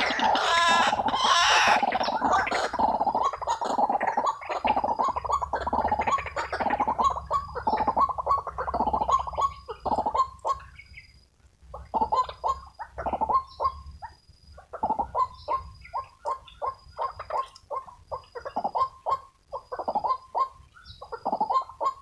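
White-breasted waterhen calling: a long run of harsh repeated notes, several a second, dense at first, breaking off briefly about halfway, then resuming in spaced bursts.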